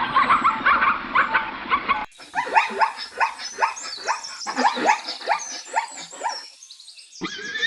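Animal calls from two separate clips. A dense squealing sound cuts off about two seconds in, followed by a run of rapid high yelping calls, several a second, that die away near the end.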